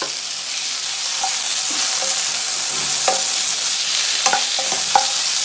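Chopped tomatoes and masala paste sizzling in hot oil in a non-stick frying pan while being stirred, with a few sharp taps of the stirring utensil against the pan in the second half.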